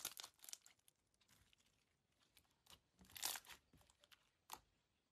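Faint crackles and pops of clear glitter slime squeezed and pressed by hand. A few short crackly bursts come at the start, the loudest cluster about three seconds in, and a last small pop near the end.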